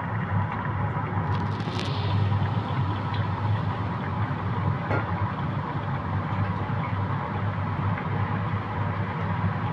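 A steady low mechanical hum with an even hiss over it and a few faint clicks.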